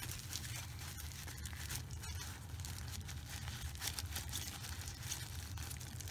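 Paper towel and thin plastic gloves rustling and crinkling in a patter of small clicks as reel parts are handled, over a steady low hum.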